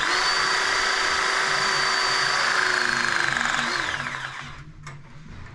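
Powered pipe press tool running a press cycle on a multilayer composite pipe fitting: a steady motor whine for about three and a half seconds, then the pitch drops and it winds down as the press finishes.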